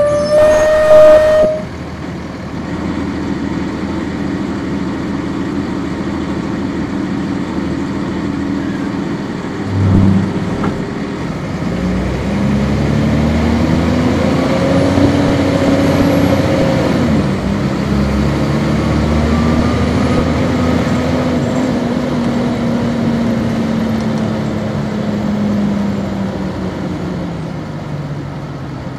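On board a 1999 NovaBus RTS transit bus with a Cummins ISC diesel and ZF Ecomat six-speed automatic. A horn blasts for about a second and a half at the start while the engine idles, and a low thump comes about ten seconds in. The engine then pulls away, rising in pitch, drops at a gear change, climbs again and falls off as the bus slows.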